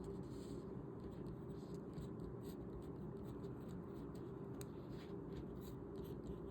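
Pen writing Chinese characters on paper: faint, irregular scratching strokes.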